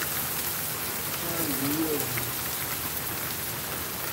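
Heavy rain pouring down onto paving and parked cars: a steady, even hiss.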